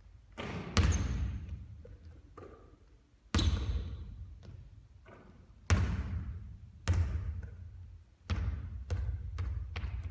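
Basketball bouncing and striking hard surfaces during three-point shooting practice: about eight sharp thuds at uneven intervals, each with a long echo.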